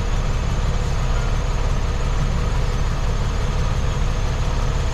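Semi truck's diesel engine running with a steady low rumble as the rig reverses slowly up to a loading dock.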